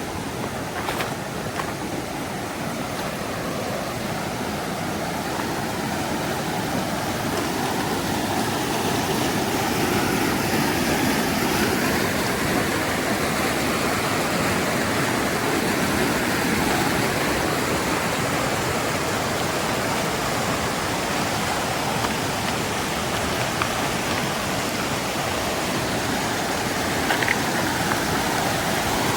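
Mountain river flowing, a steady rush of water that grows louder over the first ten seconds or so and then holds steady.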